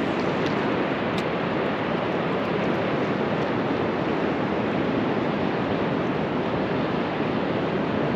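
Steady rushing noise of the open air on the microphone, even in level throughout, with a couple of faint clicks about a second in.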